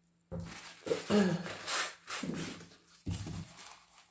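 Handling noise as a painted canvas is lifted off wooden support bars: rustling and scraping against the plastic table sheet, in several rough bursts with a short falling squeak about a second in.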